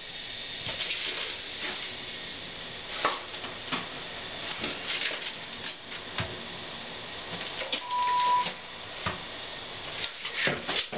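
A hand tool scraping and tapping at wet cement around the base of a ceramic toilet pan: a steady scratchy hiss broken by scattered clicks and knocks. A brief steady beep sounds about eight seconds in.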